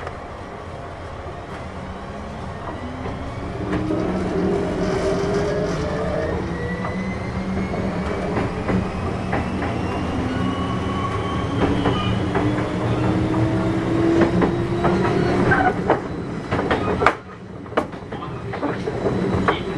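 Kintetsu 6200 series electric train heard from inside the car, its motor and gear whine rising steadily in pitch as the train pulls away and gathers speed over a steady rumble. Wheel clicks over rail joints come in toward the end.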